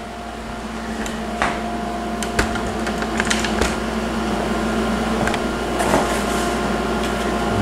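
Steady mechanical hum of a running household appliance, with a few light knocks and taps scattered through it.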